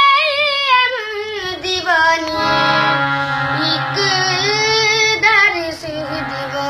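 A boy singing a melodic line, holding notes and sliding and wavering between pitches in ornamented runs. From about halfway, a steady low instrumental tone sounds underneath the voice.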